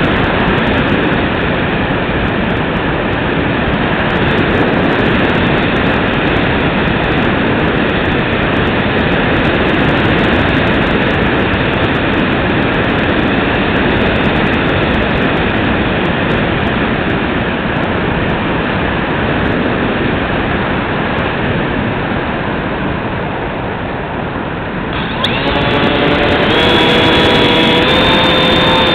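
Rushing wind noise over a Bixler 2 foam model plane's onboard camera in flight. Near the end its electric pusher motor spins up with a whine that rises and then steps higher.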